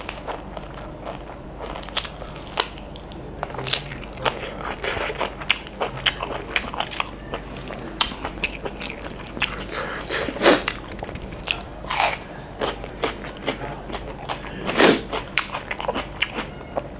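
A man chewing and biting mouthfuls of mutton curry eaten by hand, a steady run of smacking mouth sounds with a few louder bites about ten, twelve and fifteen seconds in.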